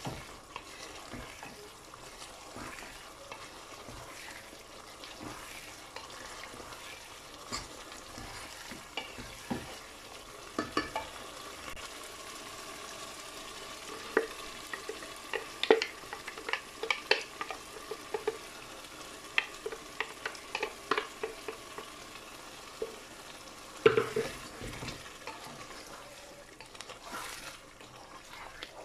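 Chicken curry sizzling in a non-stick pan while a wooden spatula stirs and scrapes it, with many sharp taps of spatula on pan, thickest in the middle, and one louder knock near the end.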